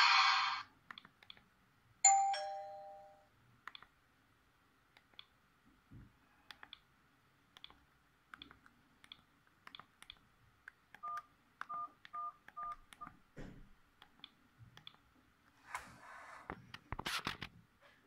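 Sony Ericsson K530i mobile phone sounds. A message alert tone cuts off just after the start, and a short falling chime rings about two seconds in and fades. Soft keypad clicks follow, then a quick run of five short beeps, the phone's key tone, and a few handling bumps near the end.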